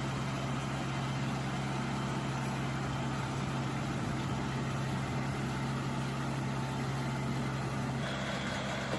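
Small tractor engine running steadily at a constant speed while driving a mini hay baler.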